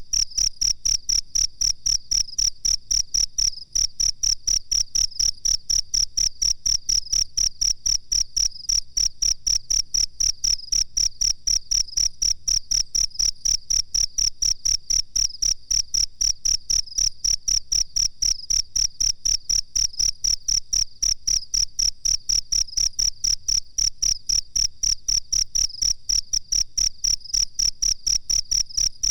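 A cricket chirping in a fast, even rhythm of several high-pitched pulses a second, without a break.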